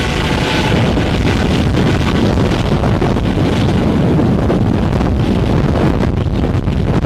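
Eurocopter AS365 N3 Dauphin helicopter climbing away overhead, its rotor and twin turbines loud and steady, with wind buffeting on the microphone.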